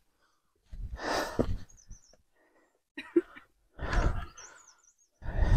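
Heavy, breathless puffs of a person winded from climbing a steep path, coming in four separate bursts about a second apart.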